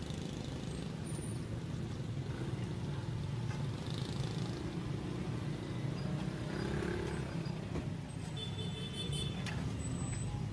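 Steady low rumble of road traffic, with vehicle engines running.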